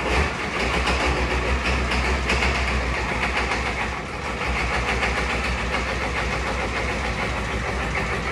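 Ford 6.9-litre IDI V8 diesel in an old dump truck idling with a steady low rumble and the even clatter of a diesel.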